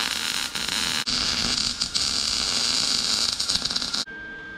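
Wire-feed welder arc crackling and hissing steadily as it welds steel expanded metal, with a short break about a second in. The arc stops about four seconds in.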